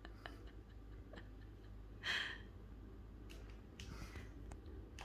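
Quiet room with a steady low hum, a few faint irregular clicks and a short soft hiss about two seconds in.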